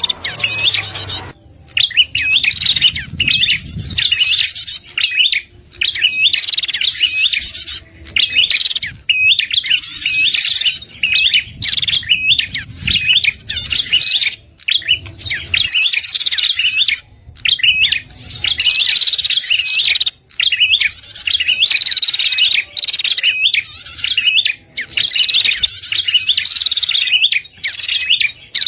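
Prenjak kepala merah (ashy tailorbird) calling: loud, high chirping phrases of quick hooked notes, repeated every second or two with short pauses. It is a lure call used to draw in wild birds of its kind.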